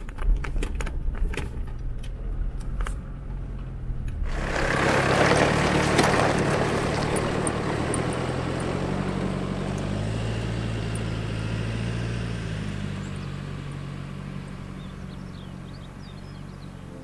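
Jeep Wrangler driving off-road, its engine running with the pitch rising and falling. Sharp knocks come through in the first few seconds, then a loud rushing noise starts about four seconds in and slowly fades.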